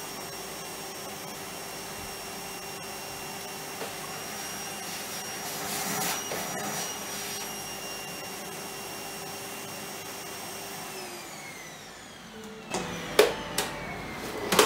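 Vacuum cleaner running steadily, then switched off about eleven seconds in, its motor whine falling away as it spins down. A few sharp knocks follow near the end.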